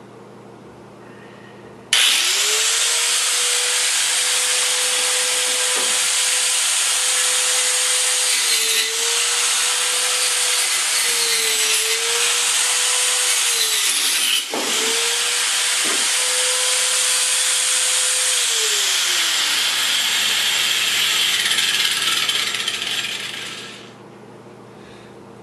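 Angle grinder fitted with a wood-cutting saw blade starting up and cutting through wood: a loud, steady, high motor whine over a hiss of cutting, its pitch sagging each time the blade bites. It cuts out for a moment about halfway, runs on, then winds down in pitch and stops near the end.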